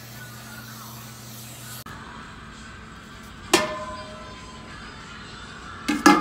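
Aluminium stock pots clanking on a gas range. There is one sharp metal clang with a short ringing tone a little past halfway, then a quick cluster of louder clanks near the end as one pot is set down into another. Before that, a steady low hum.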